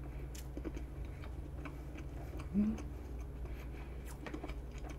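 Close-miked chewing of soft vanilla pound cake: faint, irregular wet mouth clicks, with a short hummed "mm" about two and a half seconds in, over a low steady hum.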